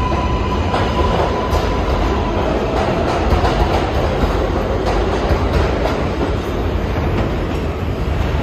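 New York City subway train on the IRT Lexington Avenue line moving through the station: a loud, steady rumble and rattle with the wheels clicking over rail joints. A steady high tone stops about a second in.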